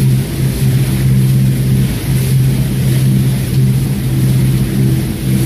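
A canal boat's engine running steadily under way, a constant low hum at one pitch.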